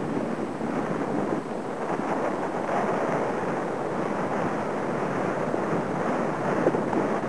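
Wind blowing across the camera's microphone: a steady rushing noise.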